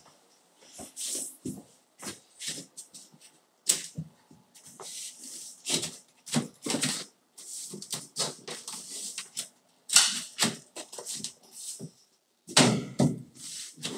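Irregular knocks, taps and scraping rustles as a length of baseboard trim is handled and pressed into place against the wall and tiled floor, with a few sharper knocks among them.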